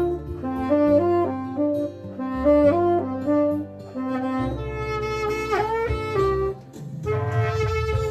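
Instrumental ballad music: a lead melody of held, stepping notes over a bass line and chords, with no singing; the melody bends in pitch about five and a half seconds in.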